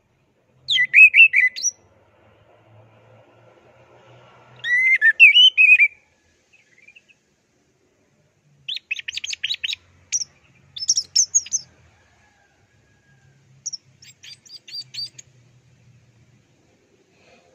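Orange-headed thrush singing: about six short, clear warbled phrases with pauses of one to three seconds between them.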